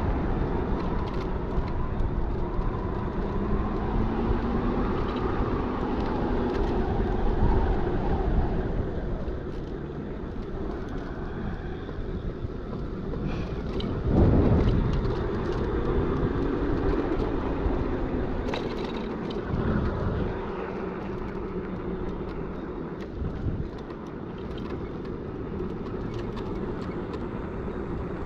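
Electric bike's QS 273 hub motor whining under way, its pitch rising and falling with speed, over wind and road rumble. A louder rush of wind comes about halfway through.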